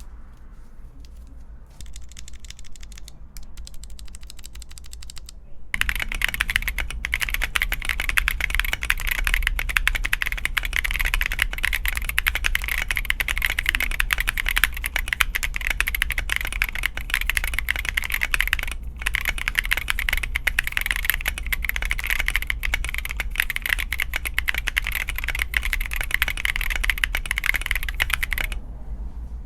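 Keychron Q1 Pro mechanical keyboard with Gazzew U4T tactile switches being typed on. Light, sparse keystrokes at first, then fast, continuous typing from about six seconds in until shortly before the end.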